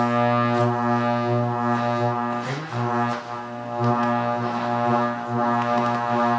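AM-band interference noise from a Technics ST8044 tuner, played through the SU8044 amplifier and speakers: a steady pitched buzz with many overtones that dips and bends briefly about two and a half seconds in. The owner identifies it as DSL signals from the telephone lines, with a subcarrier every 4 kHz across the AM broadcast band.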